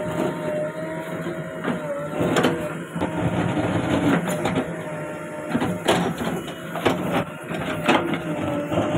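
JCB 3DX backhoe loader's diesel engine running under working load, with a steady whine over it and several sharp knocks scattered through.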